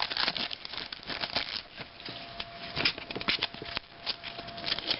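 Crinkling of a card-pack wrapper and trading cards being handled: scattered crackles and small clicks.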